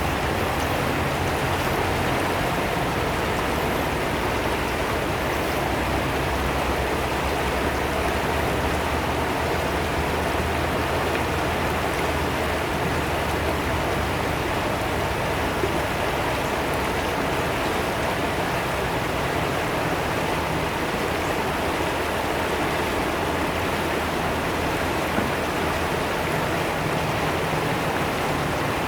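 Fast-flowing river water rushing and splashing in a steady, unbroken stream, with a low rumble underneath.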